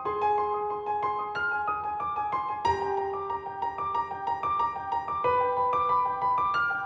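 Background music: piano playing repeated notes in an even pattern over held tones.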